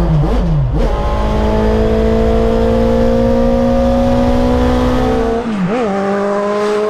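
Suzuki motorcycle inline-four engine heard from inside the small van's cabin, pulling under load. Its note falls with a gear change about half a second in, climbs steadily for several seconds, then falls again with another shift about five and a half seconds in.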